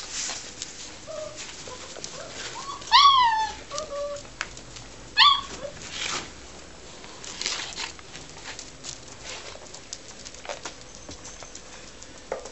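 Springer spaniel puppies yelping: two sharp high yelps about three and five seconds in, with a few fainter whimpers around them.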